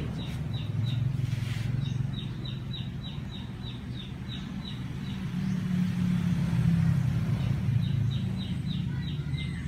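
A motor vehicle's engine running nearby as a steady low rumble, growing louder for a few seconds in the middle. Over it a bird gives quick runs of high, falling chirps, about four a second, at the start and again near the end.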